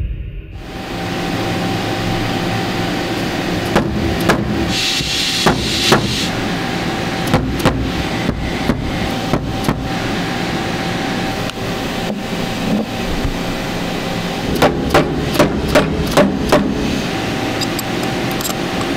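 Steady machine-shop running noise with a faint steady tone under it, overlaid with sharp metallic clicks and knocks of aluminium fixture blocks being handled and worked by hand, with a quick run of about six knocks about fifteen seconds in.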